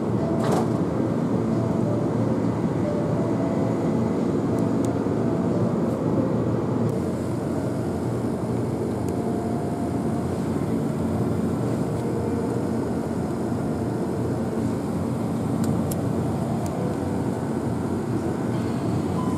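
Steady background noise inside a convenience store: a dense, even hum with a few short faint tones mixed in.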